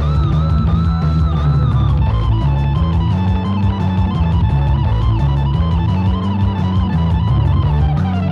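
Guitar solo with held, wavering notes, improvised over a rock'n'roll backing track of bass and drums.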